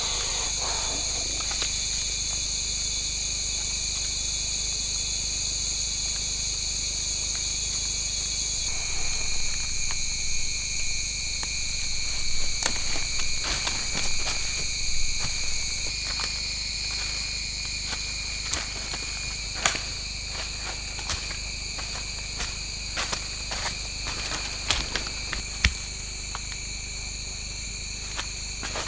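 Steady chorus of forest insects, several high continuous tones layered together, one of which drops out about nine seconds in. Scattered sharp clicks and knocks come through from that point on, thickest in the middle.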